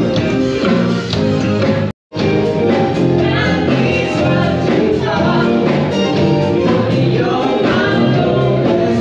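Music with singing voices, cutting out completely for a moment about two seconds in.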